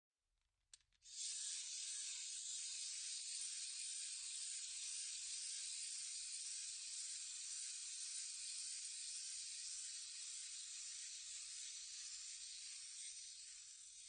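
Wind-up toy's clockwork mechanism whirring as it runs: a steady, high, hissing buzz that starts with a click about a second in and eases a little near the end.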